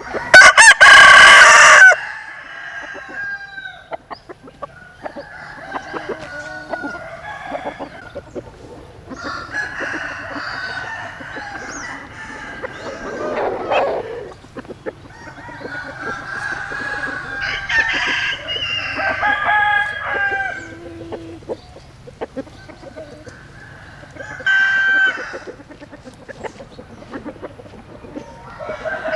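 Roosters crowing again and again, with clucking in between. The first crow, in the opening two seconds, is much the loudest.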